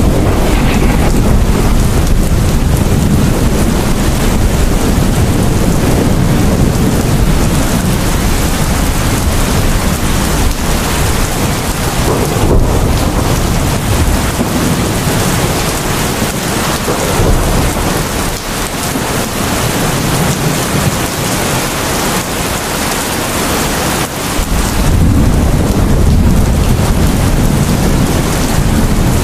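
Heavy rain pouring in a steady, dense hiss, with deep rumbling thunder underneath. The rumble eases off in the middle and swells back suddenly near the end.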